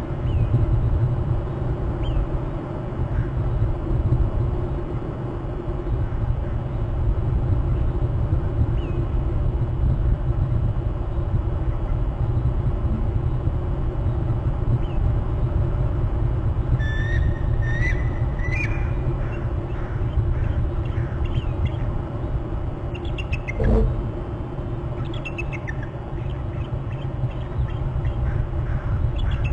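Steady low wind rumble on an outdoor microphone. Birds call briefly partway through, and a series of short high calls follows near the end. A single sharp thump comes just before the later calls.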